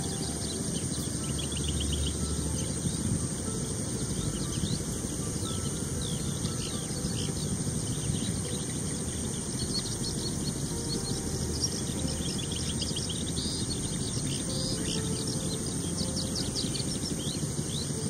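Outdoor field ambience: a steady high insect buzz over a low background rumble, with scattered runs of short, quick, high bird chirps.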